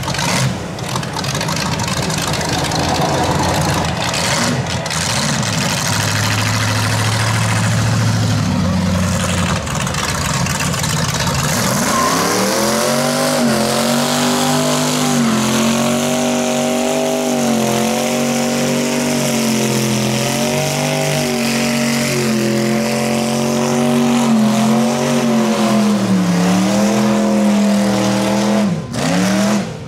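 Rat rod pickup's engine held at high revs in a burnout, its rear tyres spinning and smoking. From about twelve seconds in, the engine note stays high and wavers up and down, then drops briefly near the end. Before that there is mixed street traffic and engine noise.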